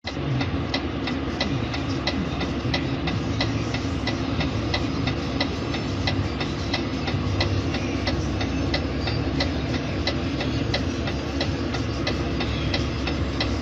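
Engine idling steadily, with a fast, even ticking over a constant low hum.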